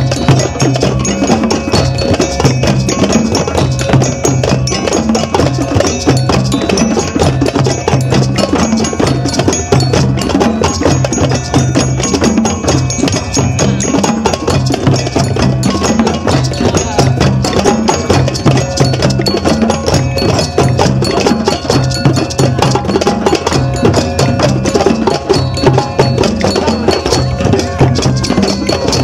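Drum circle of djembes and other hand drums playing together without a break, over a deep bass-drum pattern that repeats about once a second, with a metal bell ringing along.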